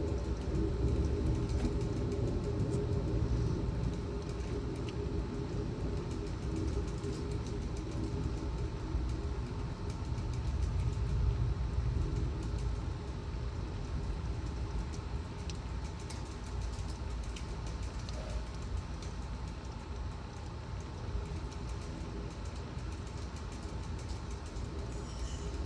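Severe thunderstorm wind and heavy rain: a steady low rumble that swells and eases a little, with faint scattered ticks.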